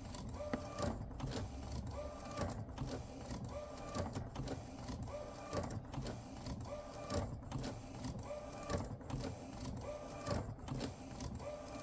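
Epson SureColor P906 inkjet printer's print-head carriage sweeping back and forth, its motor whine rising and falling about once every second and a half. There is a grinding noise each time the head changes direction at the base. The owner takes this for a mechanical fault that is getting worse, perhaps a wheel that binds.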